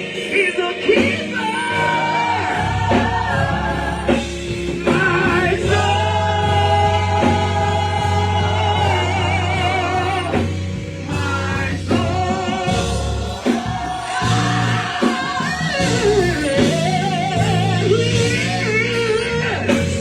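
Gospel choir singing with a live band: long held vocal notes that waver, over a steady bass line.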